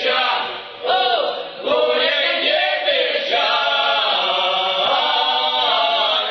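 Mixed folk choir of men and women singing a Russian folk song together in full voice, with two short breaks between phrases in the first two seconds, then a long unbroken sung passage.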